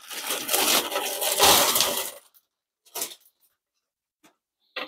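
Thin plastic wrapping crinkling as it is pulled off a plastic shower caddy basket, for about two seconds, then a couple of brief light rustles.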